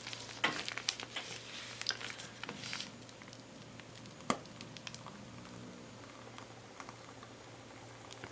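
Small handling noises while working with whipped sugar scrub, a piping bag and jars: soft squishing and scraping with light taps over the first few seconds, one sharp click about four seconds in, then a few faint ticks.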